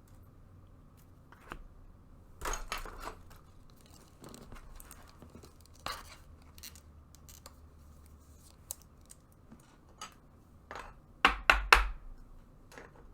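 Hands handling baseball trading cards and their pack wrappers: scattered short rustles and scrapes, with a few louder clusters, the loudest near the end.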